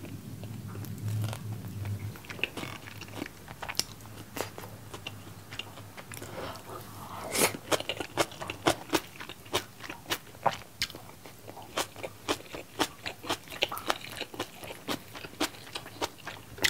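Close-miked chewing of a mouthful of Korean seasoned (yangnyeom) fried chicken: softer chewing at first, then crisp crunches about twice a second from midway on.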